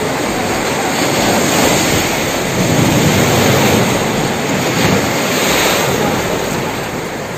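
Surf rushing and breaking over the shallows and shore rocks, a loud steady roar that swells in the middle.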